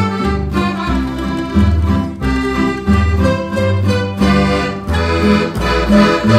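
Instrumental Sicilian folk tune with a melody over a steady bass that moves about twice a second.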